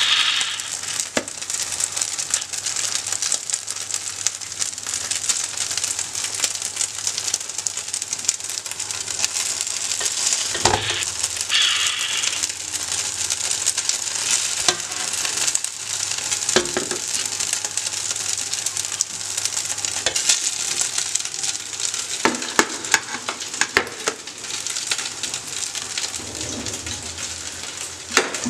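Chicken gravy sizzling steadily in a hot pot, with a metal spoon scraping and clinking against the pot now and then, and a few louder knocks in the second half, as the gravy is spread into the bottom layer of a biryani.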